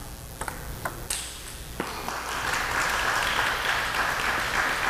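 Table tennis ball clicking off bats and table in a quick rally, about five strokes, then the crowd applauding the won point from about two seconds in.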